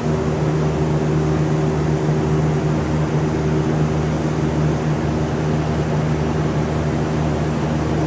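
Steady low mechanical hum with an even, unchanging drone.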